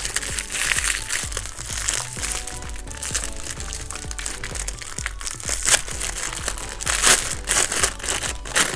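Background music with packaging crinkling and rustling as a toy is unwrapped and handled, louder in short bursts about six, seven and eight and a half seconds in.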